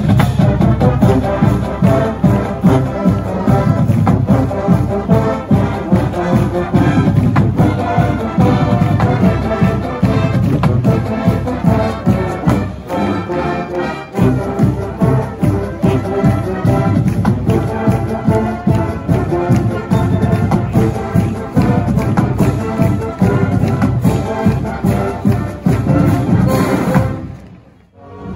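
College marching band playing in the stands, its brass section (trombones and trumpets) loud and full. The sound drops out briefly about halfway through and fades away near the end.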